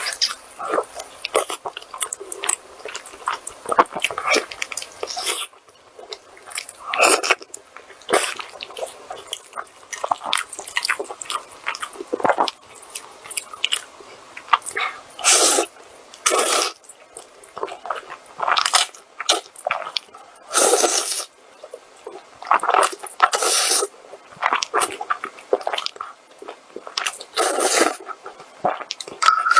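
Close-miked mukbang eating sounds: irregular bites and wet chewing, loud and close, with short pauses between mouthfuls.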